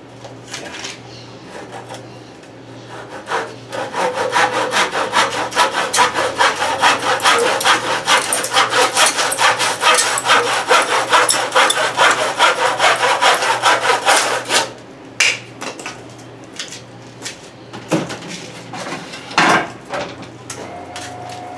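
Handsaw cutting a wooden batten with quick, even back-and-forth strokes. A few lighter strokes start the cut, then it runs steadily for about ten seconds before stopping. A couple of sharp wooden knocks follow near the end.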